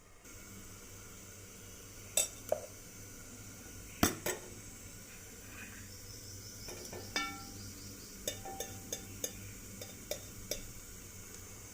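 A metal utensil clinking against a cooking pan in a few sharp knocks, with a quick run of lighter taps later on, over a faint steady sizzle of potatoes frying.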